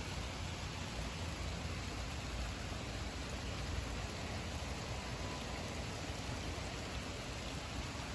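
Steady heavy rain from a tropical storm, with a low, uneven rumble underneath.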